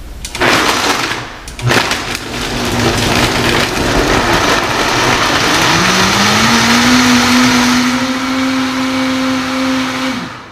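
Countertop blender crushing ice and blending fruit and almond milk into a smoothie. It starts with a short burst, dips briefly, then runs steadily; about halfway through its pitch rises and holds until it stops near the end.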